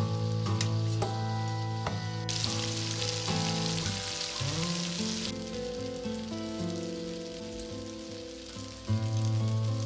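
Breaded chicken wings frying in bubbling oil, sizzling for about three seconds in the middle, over background music that runs throughout.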